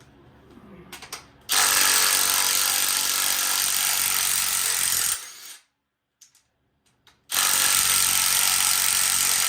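A power wrench with a 5/8 socket spins off the rocker arm nuts of a 305 small-block V8. It runs twice, each time for a few seconds, with a short pause between. Light clicks of the socket being fitted come before the first run.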